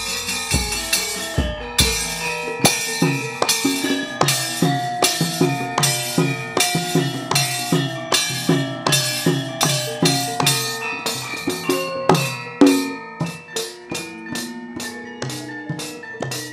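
Javanese gamelan accompanying a wayang kulit battle: bronze gongs and metallophones ringing over a fast run of hand-drum strokes, with sharp metallic clacks from the puppeteer's kepyak plates. The clacks come quicker in the last few seconds.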